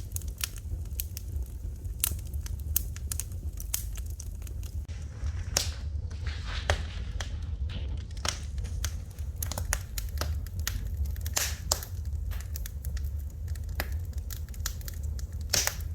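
Fire in a fireplace crackling: irregular sharp pops and snaps over a steady low rumble, with a soft hiss for a couple of seconds midway.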